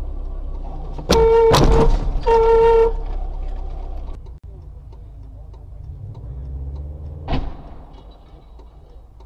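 Car horn honked twice, a blast of nearly a second and then a shorter one, over the low rumble of a car in traffic. Later comes a single short knock.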